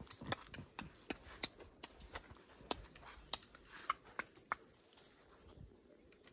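Faint, irregular crunching clicks of footsteps on a dirt and gravel trail, about two a second, stopping about four and a half seconds in.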